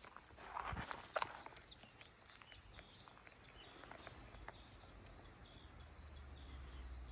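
Faint outdoor ambience: a few footstep-like knocks and scuffs in the first second or so, then a quick series of short, high chirps repeating several times a second.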